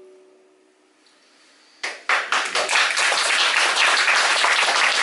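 A final acoustic guitar chord rings and dies away; about two seconds in, an audience starts applauding, and the applause is the loudest sound.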